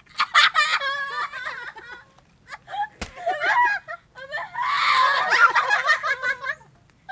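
Young women laughing and shrieking in loud bursts, with a single sharp knock about three seconds in.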